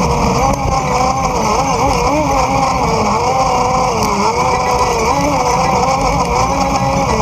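Polaris RZR 800 side-by-side's twin-cylinder engine running as it drives along a rough dirt trail. Its pitch wavers up and down continually with the throttle, over a steady low rumble of wind and trail noise on the microphone.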